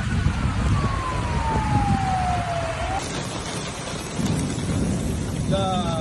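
An emergency vehicle's siren winding down, one tone falling slowly in pitch over a heavy low rumble of storm noise. It stops suddenly about three seconds in and gives way to steady heavy rain.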